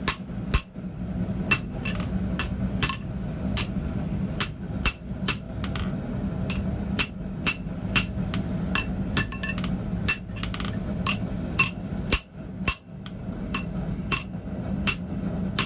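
Hand hammer striking the hot edge of a D2 steel chisel on an anvil, about two sharp ringing blows a second: the edge being thinned and packed as the steel cools. A steady low hum runs underneath.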